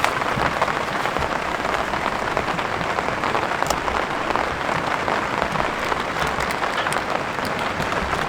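Heavy rain pouring steadily, a dense, even patter of drops.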